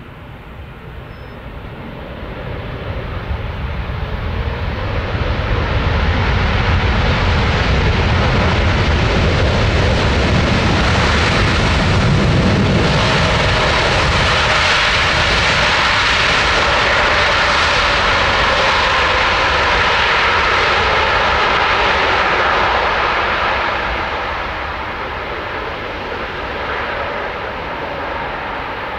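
Boeing 747-8 freighter's four GEnx turbofan engines running at high power as the jet rolls down the runway. The sound builds over the first few seconds, is loudest as it passes close by in the middle with a drop in pitch, then eases as it moves away.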